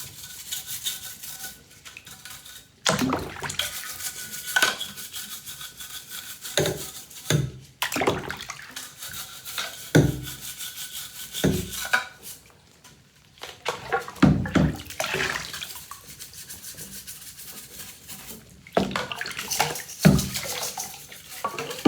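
Vacuum parts being scrubbed with a brush in soapy water, an irregular scrubbing broken by several sharp knocks of the parts being handled.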